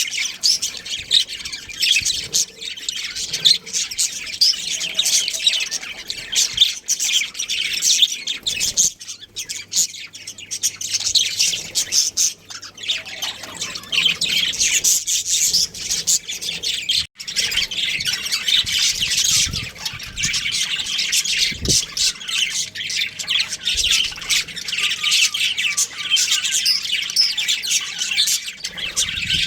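Budgerigars chirping and chattering in a steady stream of quick, high chirps and squawks, with a brief break about halfway through.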